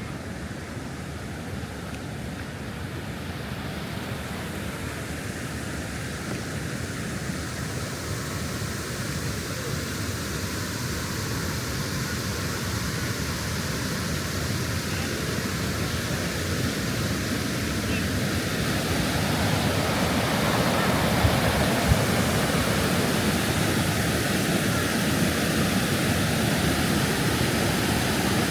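Waterfall rushing in a steady roar of water, growing gradually louder.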